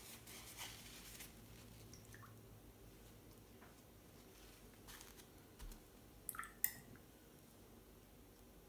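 Near silence with faint soft handling noises of watercolour painting, a brush working on paper. A few sharp little clicks come about two-thirds of the way through.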